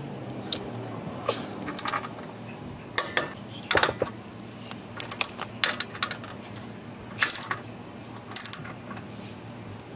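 Socket wrench and sockets clinking on the steel bracket bolts of a trailer hitch: a scatter of irregular sharp metal clicks as the bolts are torqued toward 90 foot-pounds.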